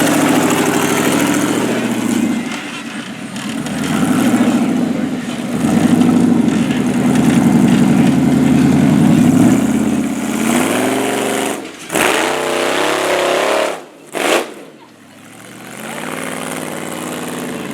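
Off-road 4x4's engine revving up and down under load, its pitch rising and falling. The sound drops away sharply twice near the end.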